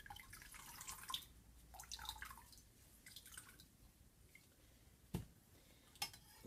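Faint dripping and trickling of tea from soaked tea bags as they are pressed on a spoon and lifted out of a Pyrex of hot tea concentrate, followed by a couple of light spoon knocks near the end.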